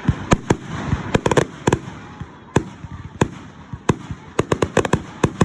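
Fireworks going off: a rapid, irregular run of sharp bangs and crackles, with several quick clusters of cracks.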